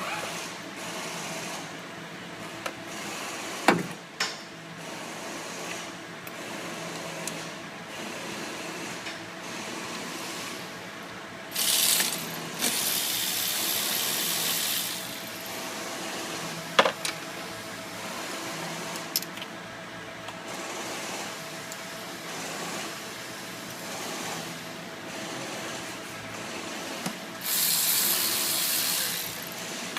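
Metal hand tools clicking and clinking against engine parts, with two hissing bursts of a few seconds each, about twelve seconds in and near the end.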